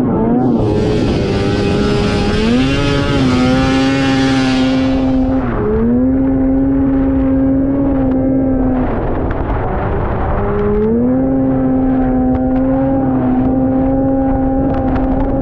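Ski-Doo Blizzard 7500 snowmobile's two-stroke engine running hard at high revs on a speed run. The pitch climbs and holds steady, dips briefly twice and climbs back each time, with a hiss over it in the first few seconds.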